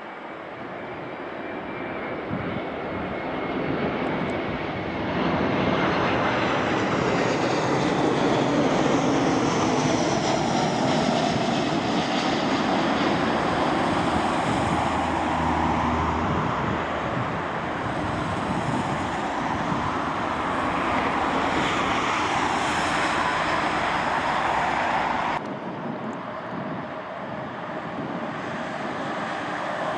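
Airbus A330-223 jet engines (twin Pratt & Whitney PW4000 turbofans) passing by, their noise building over the first few seconds, with whining fan tones that glide in pitch. About 25 seconds in the sound drops suddenly to a quieter engine rumble.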